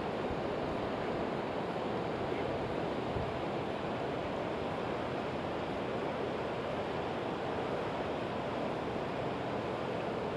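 Steady rush of flowing river water, an even, unbroken noise.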